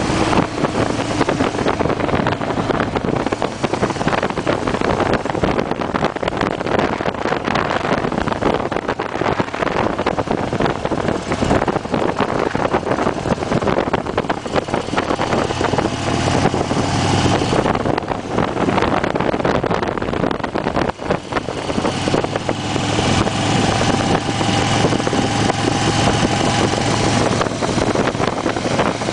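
2008 Harley-Davidson Fat Bob's V-twin engine running at road speed, mixed with steady wind rush on the microphone. The sound dips briefly about two-thirds of the way in.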